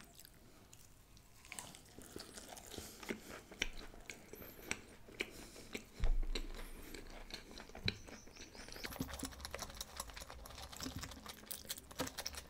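Close-miked chewing of a mouthful of egg paratha with chilli paneer: many small wet mouth clicks and smacks, starting about a second and a half in. A low thump about six seconds in is the loudest sound.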